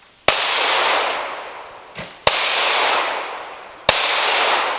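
Three pistol shots, about two seconds and then a second and a half apart, each followed by a long echo that dies away.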